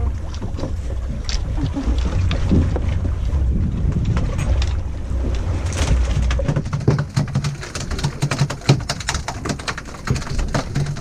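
Wind buffeting the microphone on a boat at sea, a low gusting rumble. From about six and a half seconds in, the rumble drops away and a rapid run of sharp clicks takes over, with an on-off low hum.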